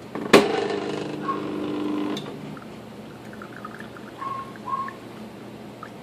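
Stepper motor driving the robot coffee maker's arm as it lifts the gold mesh filter basket up to dump the grounds: a sharp click about a third of a second in, then a steady whine of the motor for nearly two seconds that ends in another click. A few short, faint squeaks follow.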